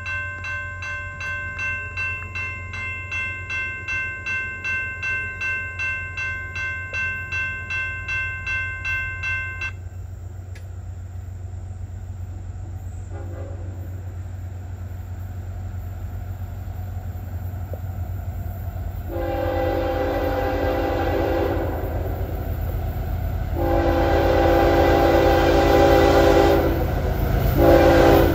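Lead locomotive of an approaching CSX intermodal train sounding its horn: two long blasts and a short one, the start of the grade-crossing signal. Before that, a bell rings steadily about twice a second and stops abruptly about ten seconds in. A low rumble of the trains runs underneath.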